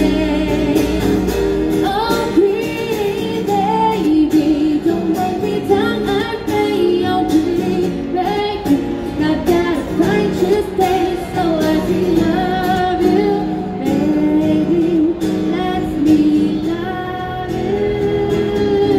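A woman singing a pop ballad into a microphone, accompanied by her own acoustic guitar, the voice carrying a continuous melody with held and gliding notes.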